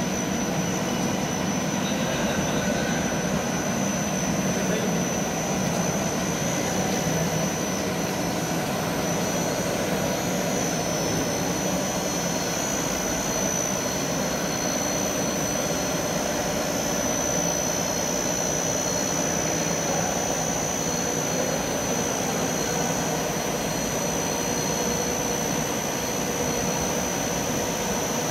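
Right-angle milling head on a gantry-type turning and machining center, milling steadily: a continuous machine noise with a steady high-pitched whine.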